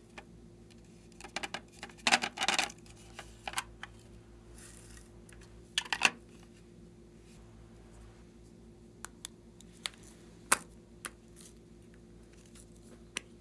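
Hands handling hollow plastic containers, including a large lip-shaped plastic case: quick clusters of clicks and rattling taps about two seconds in and again around six seconds, then a few scattered single ticks.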